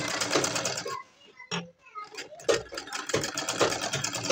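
Domestic sewing machine stitching, with a rapid, even run of needle ticks. It stops for about a second early on, then starts stitching again.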